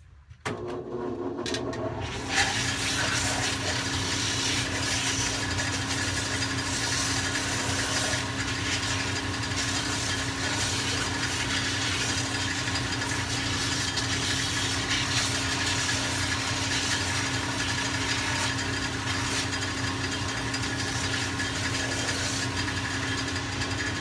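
Power sander motor starting up and running steadily, with cork filler on the bottom of a shoe being sanded flush against it from about two seconds in: a steady motor hum under a dense, even sanding noise.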